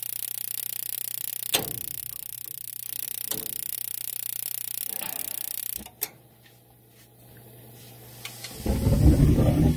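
Gas furnace starting up: a few sharp clicks over a steady hiss and hum, which cut out about six seconds in, then a loud low rumble near the end as the burners light.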